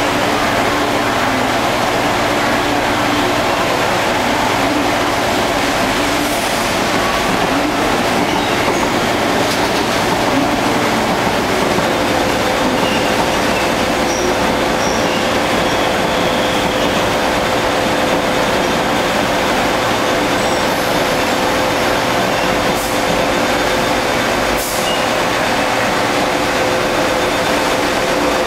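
East Rail Line electric multiple-unit train running into the station, a steady rumble of wheels on track. A steady whine comes in about twelve seconds in and holds as the carriages pass close by.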